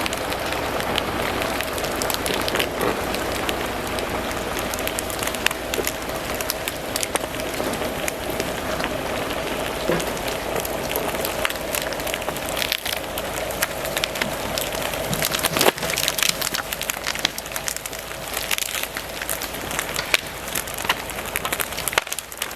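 A Kenworth self-loading log truck's engine and winch run steadily with a constant whine while a log is dragged in through brush, crackling and snapping all the way.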